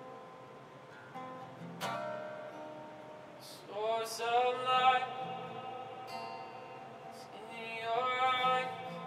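Worship music: a guitar strummed and sustaining, with a voice singing two phrases that slide up into their notes, about four seconds in and again near the end.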